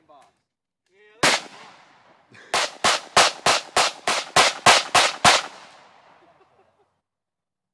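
Pistol fire from a 1911 and two Glock 19 handguns: a single shot, then a rapid string of about ten shots, roughly three a second. The reports echo briefly after the last shot.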